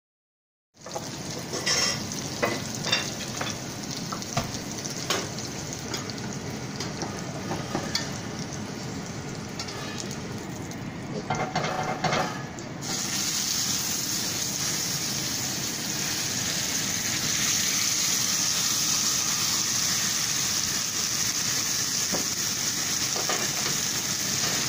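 Hot oil sizzling in a cast-iron skillet with rosemary sprigs and a garlic clove, with scattered clicks and taps. About halfway through the sizzle jumps louder and holds steady as a rack of lamb sears in the pan.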